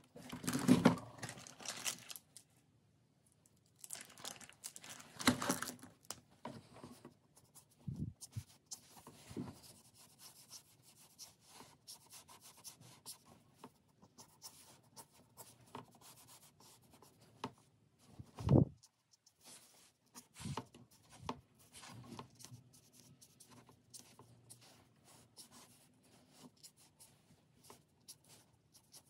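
Fine-tip drawing pen scratching on paper in many quick, short hatching strokes, with louder rasping passes in the first six seconds and one low thump about eighteen seconds in.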